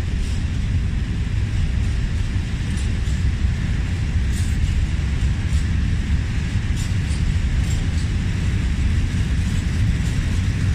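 Freight train of open coal wagons rolling past close by: a steady low rumble of wheels on rail, with a few faint, irregular clicks.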